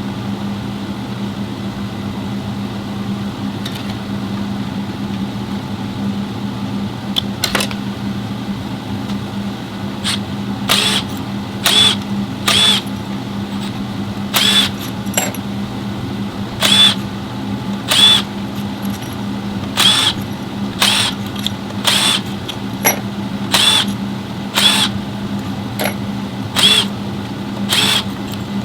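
A power tool running in short bursts, each well under half a second, about once a second from about seven seconds in, over a steady low hum; typical of bolts being spun out as an automatic transmission is taken apart.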